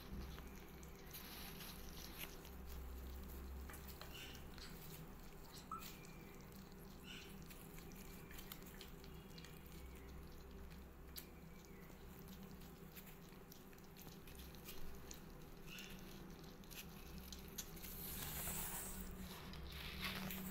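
Kittens crunching and chewing dry kibble from a plate: a scatter of small, faint crunches and clicks over a steady low hum.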